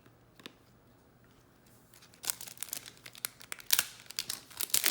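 Foil trading-card pack wrapper being torn open and crinkled, starting a little over two seconds in after a quiet spell with one small click. It comes in quick, irregular crackles, a pack of Garbage Pail Kids Chrome cards being opened.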